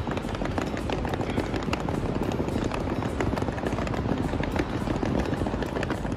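Rattle of rolling suitcase wheels and footsteps on stone paving: a steady run of many small clicks over a noisy outdoor background.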